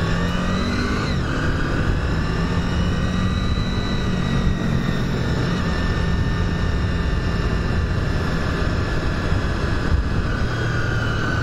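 Motorcycle engine running under way over a steady rush of wind noise, its pitch drifting slowly up and down.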